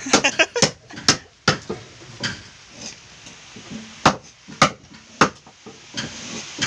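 Hammer striking a wood chisel against timber in a wooden boat's hull, giving sharp knocks at an uneven pace, roughly one every half second to a second.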